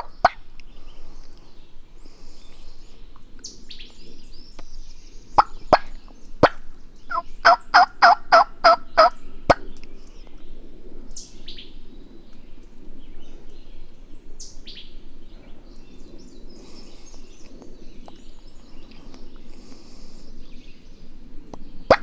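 A loud, close series of about eight turkey yelps, about four a second, near the middle. Before it come a few sharp clicks, and a few short, high, falling songbird chirps sound over a steady low background hiss.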